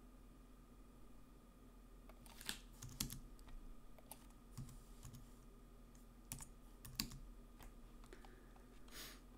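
Faint, scattered clicks of a computer keyboard and mouse, about a dozen irregular taps, as numeric values are entered into fields, over a low steady electrical hum.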